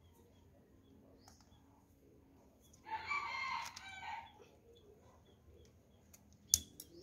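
A rooster crows once, about three seconds in, for about a second and a half. A single sharp click comes near the end.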